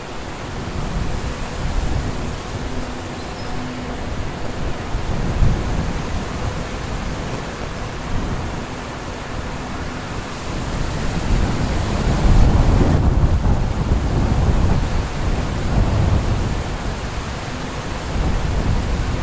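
Diesel-electric VL-class locomotive hauling a freight train, approaching at a distance: a deep, steady rumble that grows louder about twelve seconds in.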